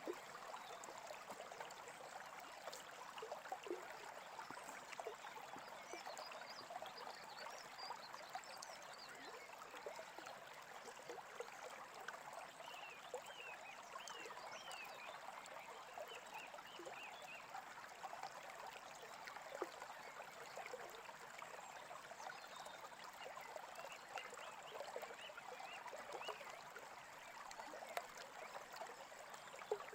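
Small stream babbling steadily, with birds chirping faintly over it, most noticeably around the middle.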